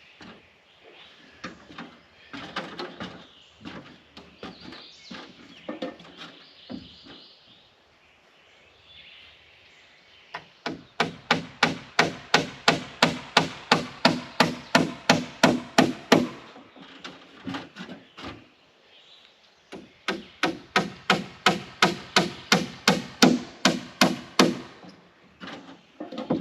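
Hammer striking into wood: two long runs of quick, even blows, about four to five a second, each with a short ring. Before them come scattered knocks and handling noises of lumber.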